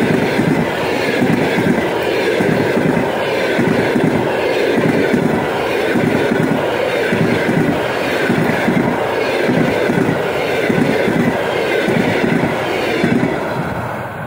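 Passenger coaches rolling past close by at speed, their wheels clattering over the rail joints in a steady, rhythmic clickety-clack with a rushing rolling noise. The sound starts to fade near the end as the last coach passes and draws away.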